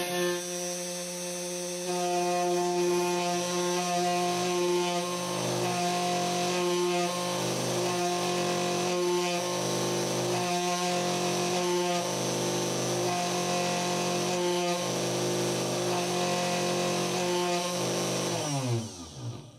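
Spindle motor of a 3018 desktop CNC engraver running at speed while the machine mills wood: a steady whine with a pattern of dips that repeats every second or so, growing louder about two seconds in. Near the end the spindle winds down with falling pitch and stops, the job halting on its own for no known reason.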